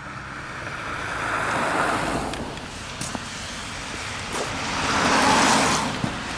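Cars passing on a street, their tyre noise swelling up and fading away twice.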